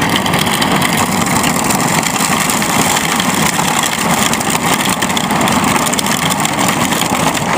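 Kids' ride-on toy truck converted to RC, driving with a rider aboard under its 2150kv brushless motor: a steady, loud rolling noise from its wheels and drivetrain, with no breaks.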